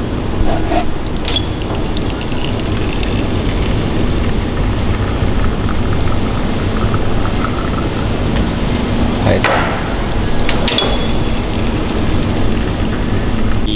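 Espresso machine running through a shot extraction: a steady pump hum under a noisy hiss. Glass shot glasses clink sharply a few times as they are swapped under the portafilter to split the shot.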